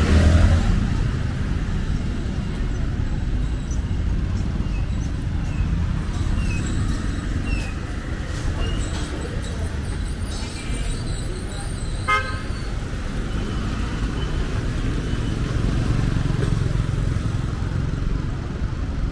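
City street traffic: cars and motorbikes passing in a steady low rumble, with one short horn beep about twelve seconds in.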